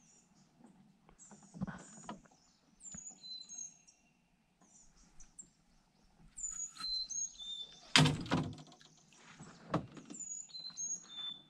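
Small birds chirping in short, high calls that slide up and down in pitch, repeated all through. A sharp knock comes about eight seconds in, and a softer one near ten seconds.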